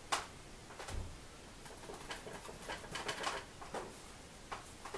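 Paintbrush working acrylic paint on a palette: scattered light taps and scrapes, with a soft thump about a second in.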